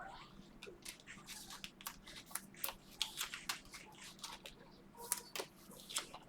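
Trading-card packs and cards being handled: faint, irregular crinkling and tearing of plastic pack wrappers with cards rustling, many short crackles a second.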